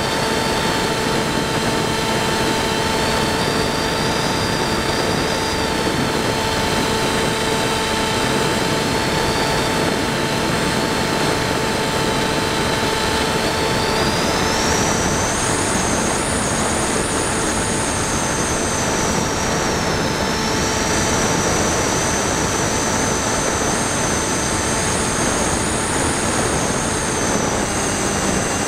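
Steady high whine of an EasyStar 2 RC plane's electric motor and pusher propeller over a rush of wind, heard from the on-board camera. The whine wavers in pitch, rises about halfway through, dips briefly and climbs again.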